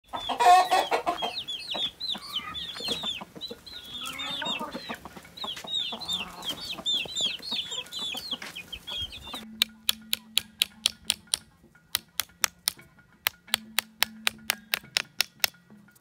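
Chickens clucking, with a louder squawk near the start and many short high chirping calls over it. About nine and a half seconds in, this gives way to music made of quick, sharp ticking clicks in a steady rhythm over a faint low hum.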